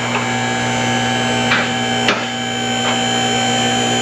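An electric-hydraulic vehicle lift's power unit running with a steady hum and whine as it raises the car, with a sharp click every second or so.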